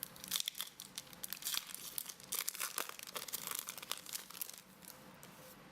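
Foil wrapper of a Pokémon trading-card booster pack crinkling and tearing as it is opened, a dense run of crackles that dies away about four and a half seconds in.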